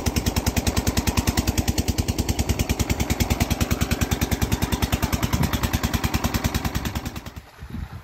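Irrigation water-pump engine running with a rapid, steady putt-putt of about nine or ten firing beats a second. The sound ends abruptly about seven seconds in.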